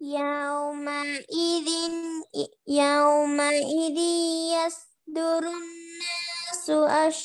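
A high-pitched voice, a child's or a woman's, recites a Quranic verse in a melodic tajweed chant. It holds long notes and bends the pitch in places, across about four phrases with short breath pauses between them.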